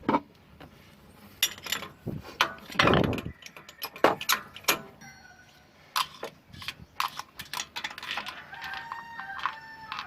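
Irregular metallic clicks, clinks and knocks of tools and small engine parts being handled, with a louder scrape about three seconds in.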